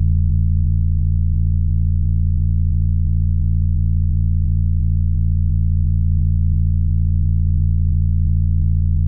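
No-input mixer feedback: a steady low drone of several held tones, strongest at the bottom, with a faint quick regular flutter running through it.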